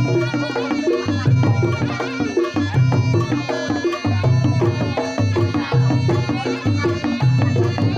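Reog Ponorogo gamelan music: a reedy slompret melody wavering over kendang drumming and a steady low beat about once a second.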